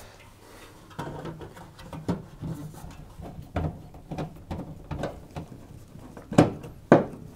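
Sheet-metal heater cover being fitted to the back of a Hoover tumble dryer and screwed on with a hand screwdriver: a run of light clicks, knocks and scrapes of metal and screw, with two sharper clicks near the end.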